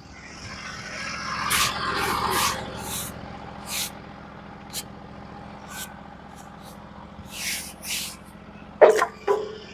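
Norwood HD36v2 bandsaw mill's engine idling steadily. Over it come several short hissing, scraping strokes, mostly in the first half, and two sharp knocks near the end.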